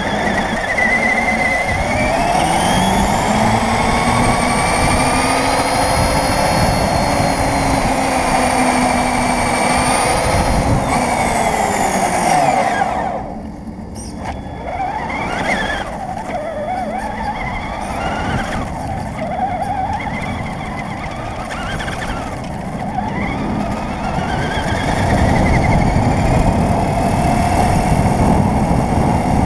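Onboard sound of an RC car driving on asphalt: its motor whine rising and falling with the throttle over the rumble of its tyres and drivetrain on the pavement. It eases off about 13 seconds in, then picks up again.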